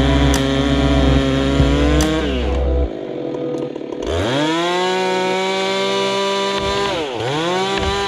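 Two-stroke chainsaw running at high revs, then eased off to a low idle between about two and four seconds in. It is revved sharply back up to a steady high pitch, with one brief drop and recovery near the end.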